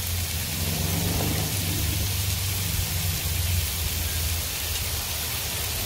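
Steady sizzle of burger patties and buns frying on a hot propane flat-top griddle (Blackstone 22-inch), with a low hum underneath.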